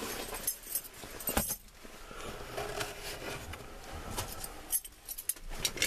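A bunch of keys jangling and clinking on a ring as they are handled, in short, uneven bursts with brief pauses, over light rustling.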